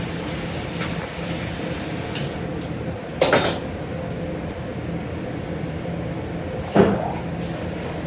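Steady hum of kitchen machinery, with two sharp knocks about three and a half seconds apart, the second the louder.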